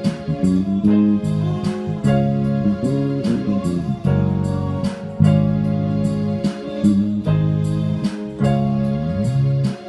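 Electric bass guitar and electronic keyboard playing together: held bass notes with sliding bass runs under keyboard chords, over a steady beat.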